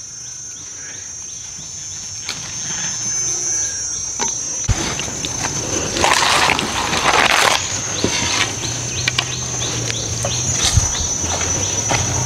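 Insects chirring steadily at a high pitch, with a louder rustle of foliage and movement about six to seven seconds in.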